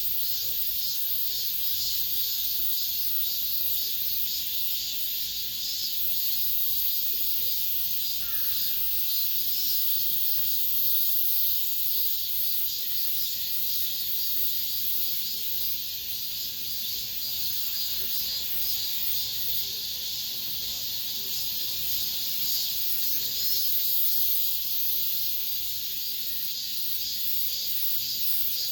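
Cicadas singing in a dense, steady chorus, a high continuous shimmering buzz.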